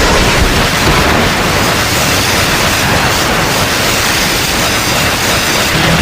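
Synthetic kaiju sound effect: a loud, steady, hissing rumble with no clear pitch and a heavy low end, like a long explosion.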